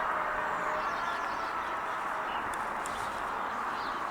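Steady outdoor background noise with a few faint songbird chirps.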